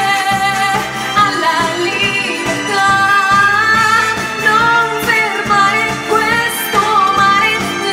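A woman singing a solo melody over full instrumental accompaniment with a steady beat.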